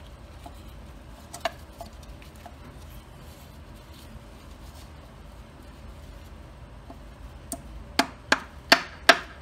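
Light hammer taps on a 1943 Farmall H's rear drive shaft oil seal carrier to knock it loose: one sharp tap about a second and a half in, then a quick run of four or five taps, about three a second, near the end.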